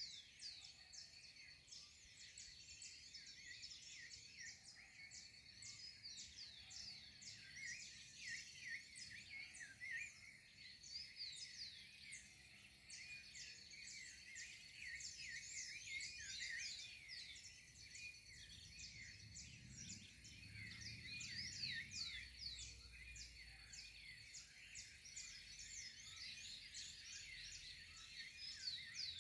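Faint dawn chorus: many birds chirping and calling at once in a dense, overlapping stream of short high chirps, over a thin steady high whine.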